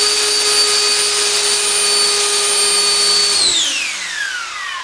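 XPS electric ducted fan with a Dynamax fan unit, on 12S, running at full throttle with a steady high whine and rushing air. About three and a half seconds in, the throttle is cut and the whine falls away as the fan spools down.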